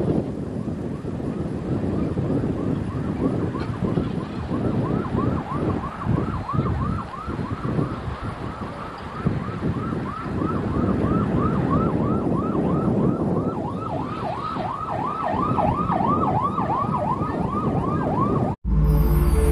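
Emergency vehicle siren in yelp mode, its pitch sweeping up and down about three times a second, over a low, gusty rumble of wind on the microphone. It cuts off abruptly near the end, giving way to music.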